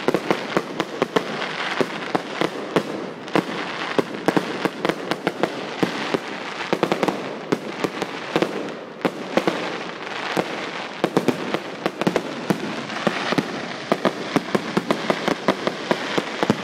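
Fireworks display: many sharp bangs from aerial shells in quick, uneven succession over a continuous crackle of bursting stars.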